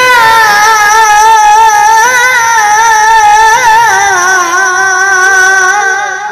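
Boys singing a mourning lament (noha) in chorus into a microphone: one long drawn-out note with a wavering vibrato, sliding lower partway through and fading out near the end.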